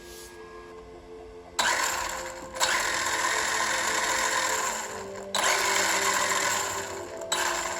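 WLToys 124017 brushless RC car running, its motor and drivetrain whirring with tyre noise, in clips that cut in and out abruptly, over background music with sustained notes.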